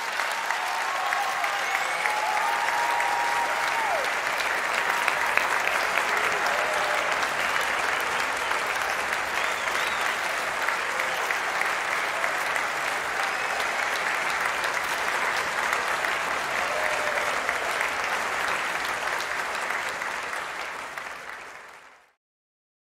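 Crowd applauding and cheering, with a few voices calling out, steady and then fading out to silence near the end.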